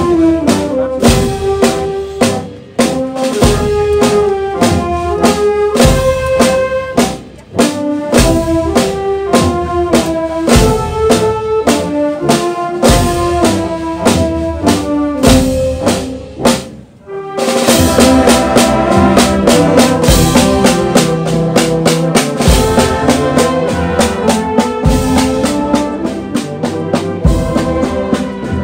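Processional brass band with drums playing a slow march, the drum marking a steady beat under the brass melody. The music drops away briefly about 17 seconds in, then comes back fuller.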